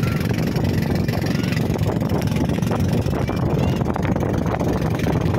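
Boat engine of a motorized bangka running steadily under way, a dense low rumble close to the microphone.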